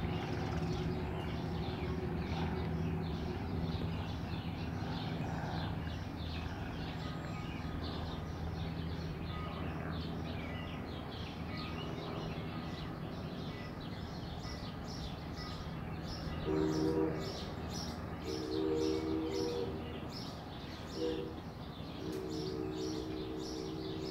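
Birds chirping over a steady low hum, then a distant steam locomotive's three-chime whistle, Canadian National 89's new PRR-style whistle, sounds a chord of three notes. It blows four blasts from about two-thirds of the way in: short, longer, short, then a long one still sounding at the end.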